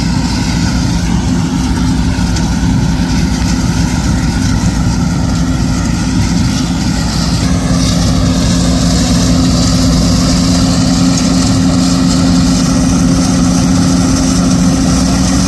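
Heavy diesel engine of farm harvest machinery running steadily at constant speed, with a steady low drone. It grows slightly louder about halfway through.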